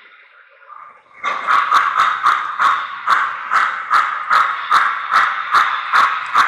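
Model steam locomotive's onboard sound system chuffing in a steady rhythm of about three beats a second, over a steady running hum. The chuffing starts just over a second in.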